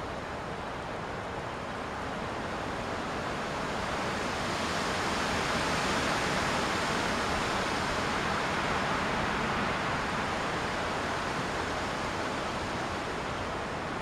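Wind gusting through pines and leafy trees: a steady rushing of leaves and branches that swells about four seconds in and eases a little toward the end.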